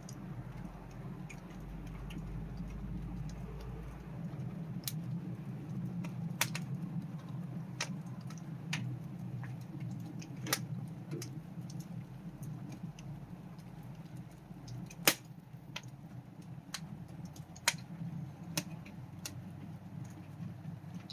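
Wood campfire crackling: irregular sharp pops and snaps over a steady low background, with the loudest pop about fifteen seconds in.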